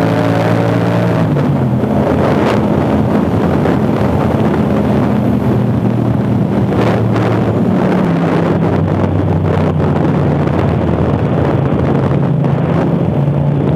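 Yamaha MT-07's parallel-twin engine through an Akrapovic exhaust, running under way with heavy wind noise on the helmet microphone. The revs drop about a second in, then hold steady.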